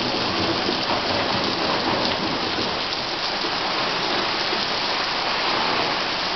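Rain falling steadily, a dense, even hiss with no break.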